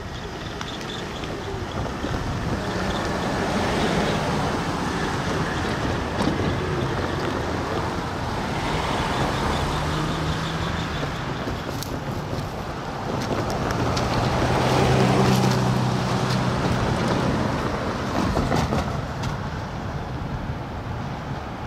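Diesel freight locomotive running in the distance, a low engine rumble that swells about midway and again a little later, mixed with wind on the microphone.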